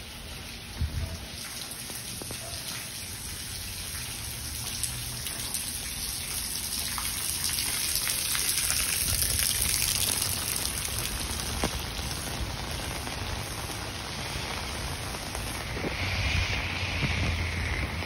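Steady water noise with scattered drip-like ticks, swelling louder through the middle and easing off again.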